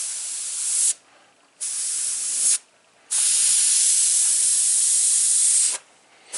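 Airbrush spraying white paint: a steady high hiss of air that stops and starts again as the trigger is released and pressed, in three bursts, the last and longest about two and a half seconds.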